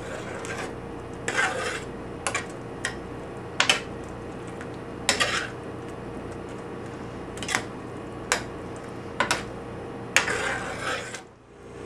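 A spoon stirring thick lentil curry in a skillet, scraping against the pan in about a dozen short, irregular strokes, with a longer stroke near the end. A steady hum runs underneath.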